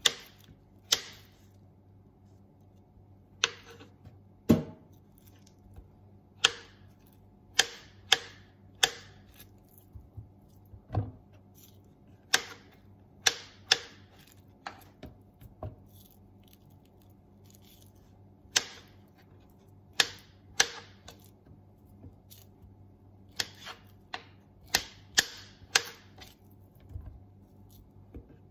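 Kitchen knife slicing a peeled potato, the blade coming down onto a wooden cutting board in sharp, irregular taps about once a second, with a couple of duller knocks among them.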